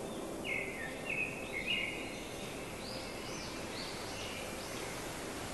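A small songbird calling a string of short, quick chirps, most of them in the first four seconds, over a steady outdoor hiss.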